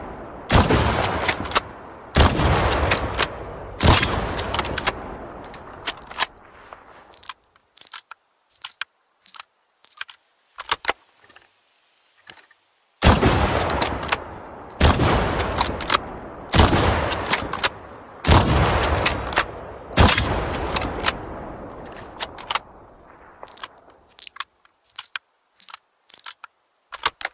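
Mosin-Nagant three-line rifle (7.62×54mmR) firing: three shots about a second and a half apart, each with a long echoing tail. Then a run of sharp metallic clicks and rattles of the action being worked, followed by five more shots at a similar pace and more clicks near the end.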